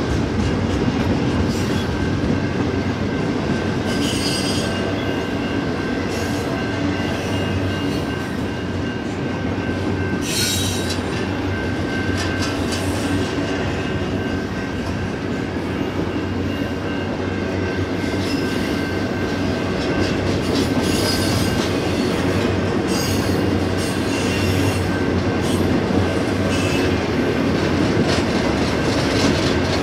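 Double-stack intermodal freight train's container-laden well cars rolling past with a steady noise of steel wheels on rail. Brief high-pitched wheel squeals come through several times.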